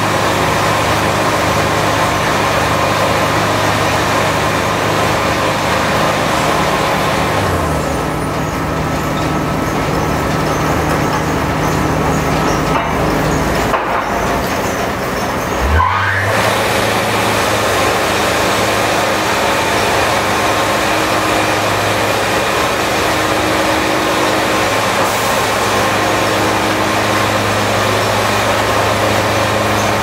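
Wood-Mizer sawmill engine running steadily. The higher part of the sound drops away for several seconds near the middle, and a short pitch glide comes about sixteen seconds in before the steady running resumes.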